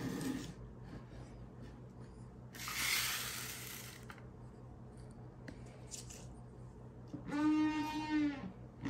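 Helmet shell squeaking against its wooden stand as a hand turns it: one drawn-out, moo-like creak about a second and a half long near the end, dipping in pitch as it stops. A brief rustle of handling comes about three seconds in.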